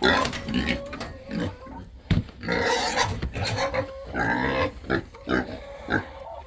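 Pigs grunting as they crowd in and eat corn and green beans, with a single sharp knock about two seconds in.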